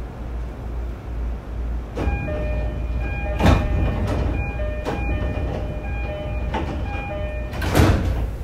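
Inside a JR E231-series commuter car stopped at a station, a steady low hum from the train with a repeating electronic door chime starting about two seconds in. Several clunks punctuate it, the loudest near the end as the sliding doors shut.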